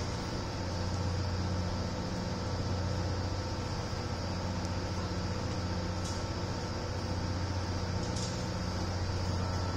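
Steady low machine hum with a constant high hiss over it, unchanging throughout.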